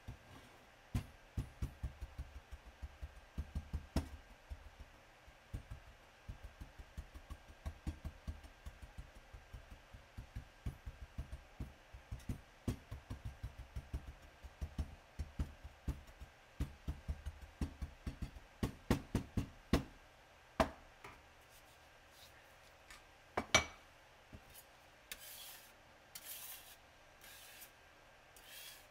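A pigment muller worked in circles over powder on a glass slab: a quick run of low knocks and rubbing, about three or four strokes a second, that stops two-thirds of the way through. Two sharp clicks follow, and near the end a few short hissing scrapes as a palette knife drags the powder across the glass.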